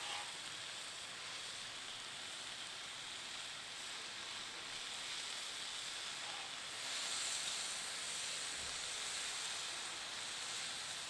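New York strip steak sizzling steadily on a hot Blackstone flat-top griddle, growing a little louder about seven seconds in.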